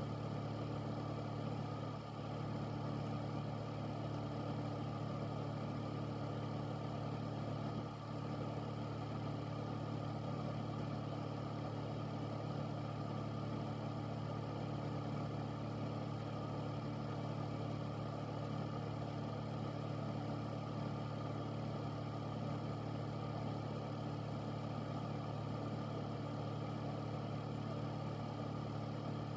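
Air filter (air purifier) running steadily: a constant motor hum with a low drone and an even rush of air.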